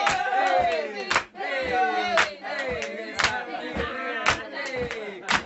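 A group of people shouting and whooping, their voices overlapping in falling calls, with a sharp hit about once a second.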